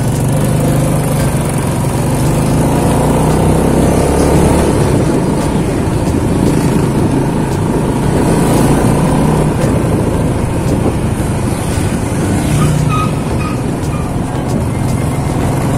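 Motor scooter engine running steadily under way, heard from the rider's seat, with road and wind noise.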